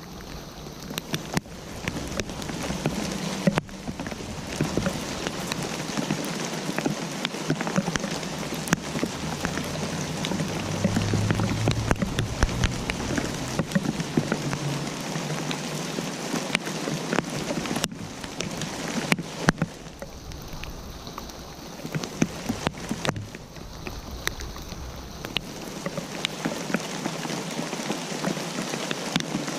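Steady rain falling, with many separate drops ticking sharply on a hard surface. The intensity eases briefly a few times.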